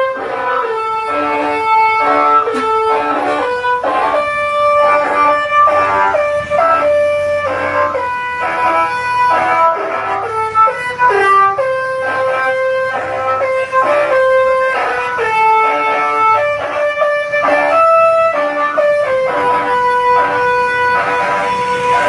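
Basuri melody horn on an Indonesian tour bus playing a quick tune, a run of short notes broken by longer held ones.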